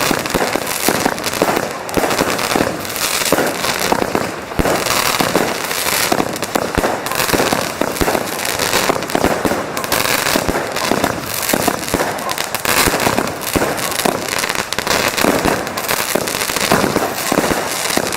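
Fireworks going off in a dense, unbroken barrage: many sharp bangs and crackles overlapping, several every second, with no lull.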